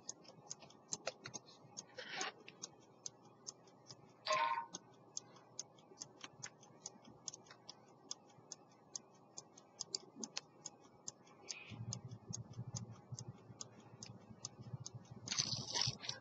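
An 18th-century London fusee pocket watch with a verge escapement ticking steadily, about five ticks a second. A few brief louder noises come around two and four seconds in and near the end, with a low rumble in the second half.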